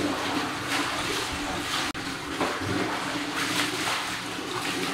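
Water poured from a jug over a long-haired dog during a bath, splashing repeatedly onto its coat and the tiled floor.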